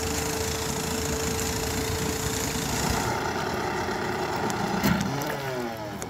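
Antique outboard motor running steadily, with a sharp click about five seconds in; near the end its pitch falls as the engine slows.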